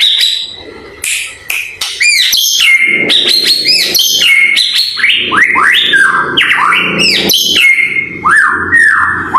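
White-rumped shama (murai batu) singing a fast, varied song of whistles, rising and falling sweeps and sharp chips. It comes in short, separated phrases at first, then runs on unbroken from about two seconds in.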